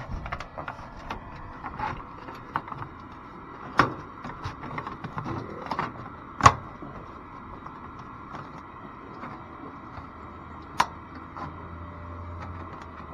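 Aluminum vented soffit panel being slid and pushed by hand into its J-channel: light metal clicks and rattles, with a few sharper knocks about four, six and a half and eleven seconds in.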